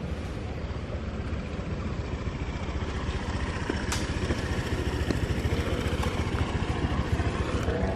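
A motor scooter passing close by, its small engine running and growing louder as it comes near.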